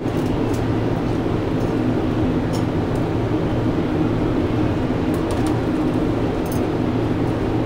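Steady mechanical hum with hiss, like a fan or machinery running, with a few faint clicks.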